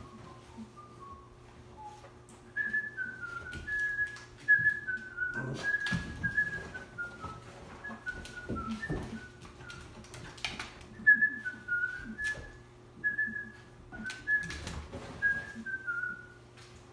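A person whistling short, high notes in quick falling runs of three or four, phrase after phrase. Scattered knocks and rustles come in between, loudest about six and ten seconds in, over a faint steady hum.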